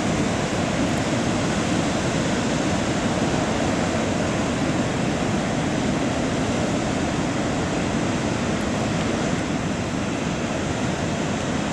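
Heavy surf: large waves breaking and churning into whitewater, a loud, steady rushing noise that never lets up.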